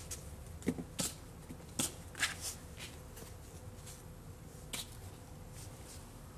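Hands handling a plastic hard case and its foam insert: a handful of sharp clicks and short rustles in the first two and a half seconds, then one more a little past the middle.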